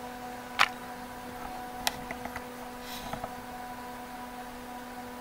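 Steady hum of the Tektronix TDS 340 oscilloscope's cooling fan running after power-up, with a few light clicks over it, the loudest about half a second in and another sharp one near two seconds.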